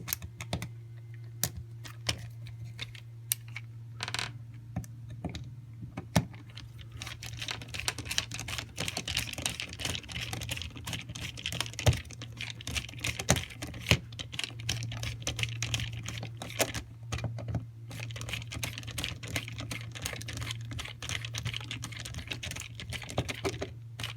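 Screwdriver tightening the mounting screws of a wall outlet: a dense run of small clicks and ticks of metal and plastic, with a steady low hum underneath.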